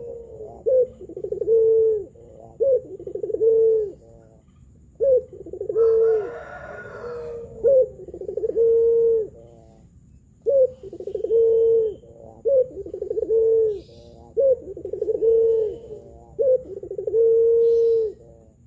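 A puter pelung (domestic Barbary dove) cooing again and again, each coo a short clipped note followed by a longer, drawn-out note, with brief pauses about four and nine seconds in.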